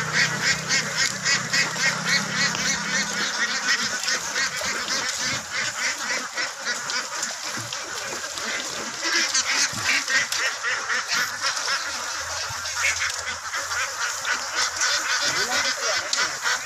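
A large flock of domestic ducks quacking all together, a dense, continuous chorus of rapid overlapping quacks.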